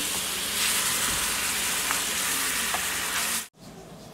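Chicken and potatoes in soy-sauce adobo sauce sizzling in a pan while a wooden spoon stirs them. The sizzle cuts off abruptly about three and a half seconds in.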